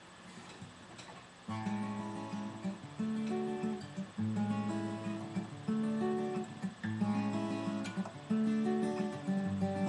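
Acoustic guitar strummed in a repeating chord pattern, starting about a second and a half in, with a strong stroke roughly every second and a half: the song's introduction before the singing comes in.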